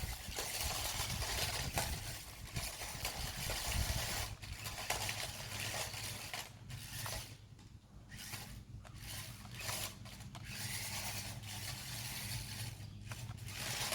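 HScopter tracked double-sided RC stunt car's electric drive motors and tracks running, a mechanical whirring and clatter over a low hum that rises and falls as it is driven, quietest about halfway through.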